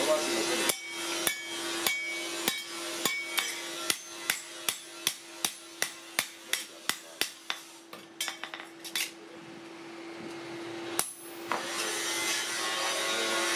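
Hand hammer striking a masonry trowel against a steel block in a steady run of sharp blows, about two to three a second, as its wooden handle is driven onto the tang. The blows stop after about seven seconds, a few irregular knocks and one more about eleven seconds in follow, then a brief scraping.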